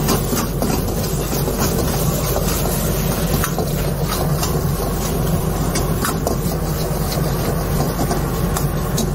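Steady rushing noise of a commercial kitchen's gas wok range, with a steel ladle scraping and clinking against a steel wok as vegetables are stir-fried, a few sharp clinks scattered through.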